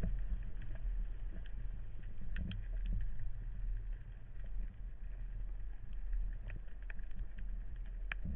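Underwater ambience heard through a camera housing: a steady low rumble of moving water with scattered faint clicks.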